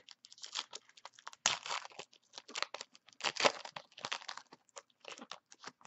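A trading card pack wrapper being torn open and crinkled by hand, an irregular run of crackling and tearing with the loudest rips about one and a half seconds and three and a half seconds in.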